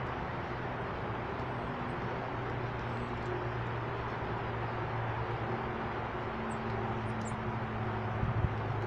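Steady outdoor background rumble of distant traffic, with a low engine hum running under it. A few faint, high, short chirps come about two-thirds of the way in, and a couple of knocks near the end.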